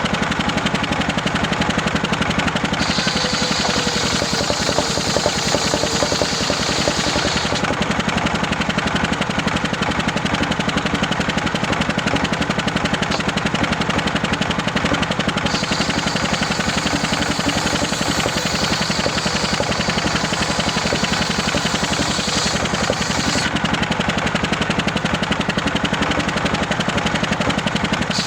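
Homemade engine-driven circular saw running steadily with a fast, even engine beat. A higher, brighter sawing sound joins it twice, once for a few seconds and later for about eight seconds, as the blade cuts through waru wood.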